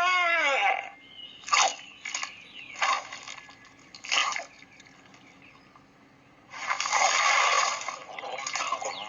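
Cartoon soundtrack: a short cry that bends up and then down in pitch, then four short sharp sounds about a second apart, then a loud noisy rush about six and a half seconds in.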